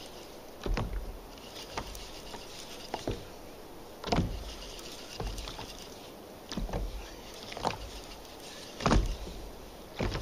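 Knocks and clunks of a fishing rod and spinning reel against a kayak, roughly once a second over a soft hiss, while the reel is wound in against a hooked fish.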